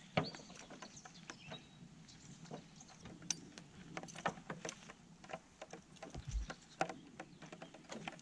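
Scattered light clicks and knocks of a metal bike carrier being unhooked from the rear hatch of a Volkswagen T4 van and handled, with a low thump about six seconds in.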